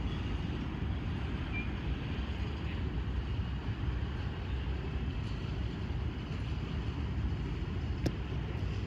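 Canadian Pacific freight train of covered hopper cars rolling past slowly, a steady low rumble of steel wheels on rail, with one sharp click near the end.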